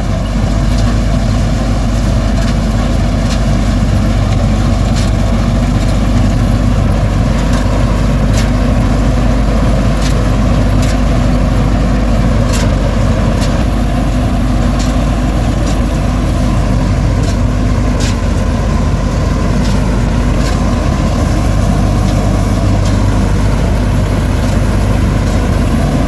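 Punni combine harvester running close by while cutting soybeans: a loud, steady engine and machinery drone, with scattered sharp clicks.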